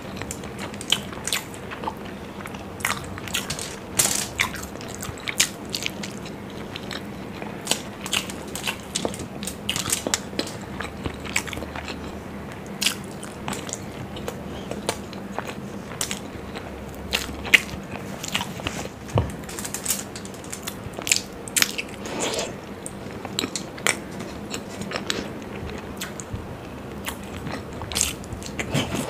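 Close-miked eating sounds of masala-fried hard-boiled eggs being bitten and chewed, with frequent irregular sharp mouth clicks and smacks.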